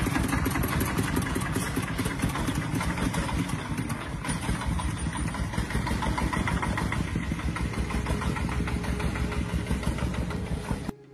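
Repaired diesel engine running steadily with a rapid, even pulse of firing strokes, cutting off suddenly near the end.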